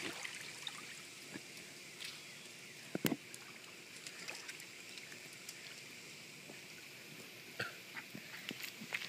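Quiet outdoor background hiss with a few soft clicks and taps, a sharper click about three seconds in.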